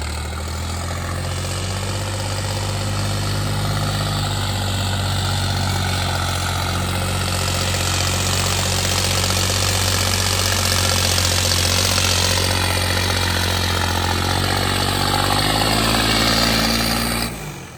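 John Deere 5210 tractor's 50 hp diesel engine running steadily and hard under load, with a rushing noise that swells through the middle. The sound falls away sharply near the end.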